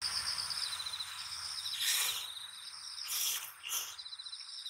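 Insects chirping in a steady, fast-pulsing high trill, with three short bursts of noise about two, three and nearly four seconds in.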